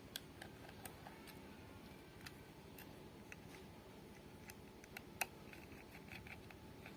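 Faint, scattered clicks and ticks of a small screwdriver and metal parts as screws are taken out of a laptop hard-drive bracket. One sharper click comes about five seconds in.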